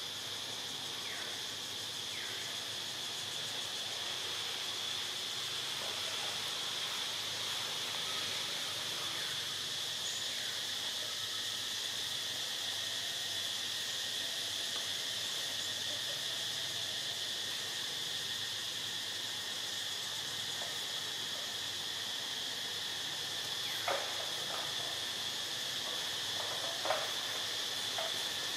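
Steady, shrill drone of insects in the forest, one unbroken high hum, with two short sharp snaps near the end.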